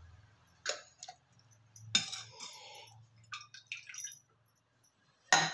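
Blanched spinach being scooped out of a pan of water with a metal spoon and dropped into a steel mixer jar: a few scattered clinks and wet slaps, the loudest just before the end.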